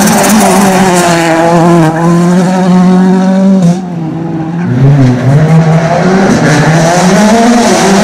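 Rally cars' 1.6-litre turbocharged four-cylinder engines at full throttle. The engine note is held and climbing, then cuts off sharply as the throttle lifts just under four seconds in. After a brief lull it revs up and down through the gears.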